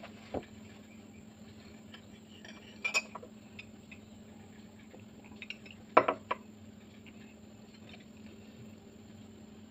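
Ceramic mug and metal cutlery clinking against a plate and table. There is a soft knock near the start, a short run of clinks about three seconds in, and the loudest rattle of clinks about six seconds in.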